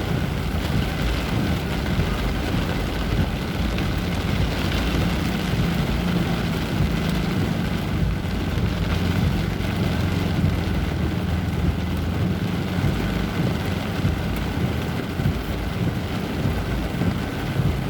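Heavy rain hissing over a steady low rumble of vehicle engines and traffic.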